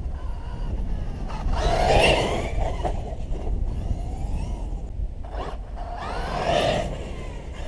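Brushless electric motor of a Thunder Tiger eMTA Kaiser RC monster truck on 6S lipo whining in two bursts, about two seconds in and again near the six-second mark, its pitch rising and falling with the throttle. Wind rumbles on the microphone throughout.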